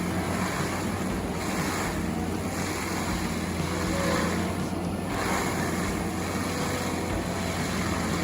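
Heavy machinery running steadily: a continuous engine hum under an even rushing noise.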